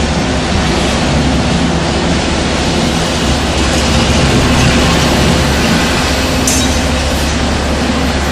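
Backhoe's diesel engine running steadily under load, with a brief high click about six and a half seconds in.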